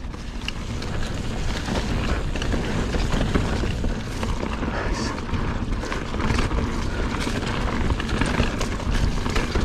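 Mountain bike riding down rough singletrack: tyres rolling over dirt, rocks and leaves, with frequent clicks and rattles from the bike over bumps under a steady low rumble.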